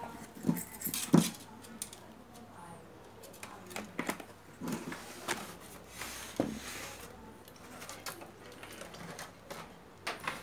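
Irregular knocks, clicks and light rattles from a CRT TV's main circuit board and plastic cabinet being handled and tilted, with a brief rustle of wiring about six seconds in, over a faint steady hum.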